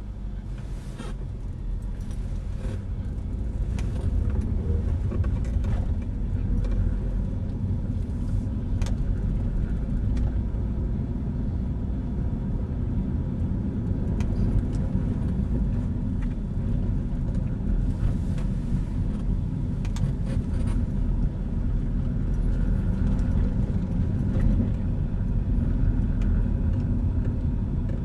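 Car driving along a road, heard from inside the cabin: a steady low rumble of engine and tyre noise, with a few light clicks and rattles.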